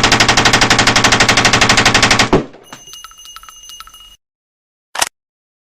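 MAC-10 machine pistol firing one long full-auto burst at a very fast rate, over a dozen shots a second, that stops abruptly after about two and a half seconds. Fainter metallic ringing and clicking follows for a couple of seconds, then one short sharp sound near the end.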